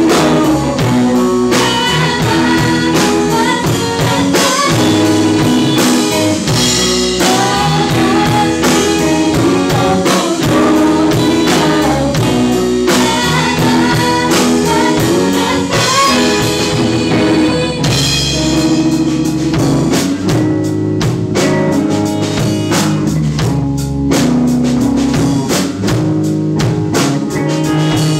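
Live rock band playing: a woman singing over electric guitar, bass guitar and drum kit. The voice drops out about two-thirds of the way through, and the band carries on with an instrumental passage.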